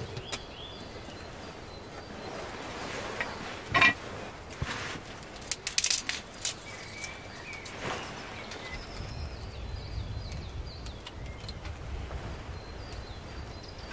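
Sticks of kindling knocking and clattering against a small folding metal twig stove as they are fed into the fire: a sharp knock about four seconds in and a quick run of knocks around six seconds. Birds chirp in the background.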